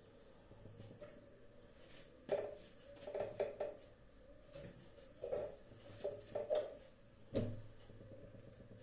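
Light knocks and clinks of cookware on a gas stove as rotis are placed and turned on a hot tawa, about a dozen short knocks in small clusters, over a faint steady low hum.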